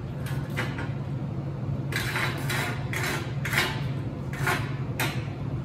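Steel hand tools, welding pliers among them, clinking and scraping against metal on a steel welding table: a few light clicks, then about six short, sharp scrapes from about two seconds in, over a steady low hum.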